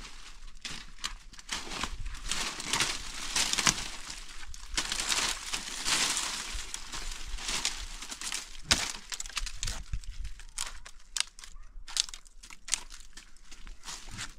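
Irregular rustling and crackling, with many small snaps and clicks at an uneven pace.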